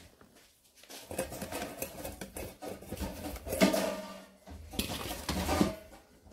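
Dry cat kibble rattling and clattering as it is poured into a bowl, in two spells with a short pause between.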